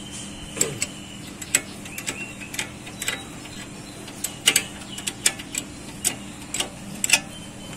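Irregular sharp metallic clicks and clinks, about two a second, from hand tools working on a car's front disc-brake caliper.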